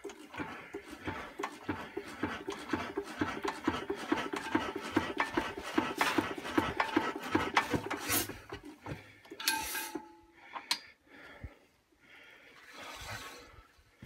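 Imperial Super Diesel single-cylinder hit-and-miss engine being hand-cranked, its flywheels turning over with a fast rhythmic mechanical clatter that dies away after about nine seconds without the engine catching. A short hiss about nine and a half seconds in.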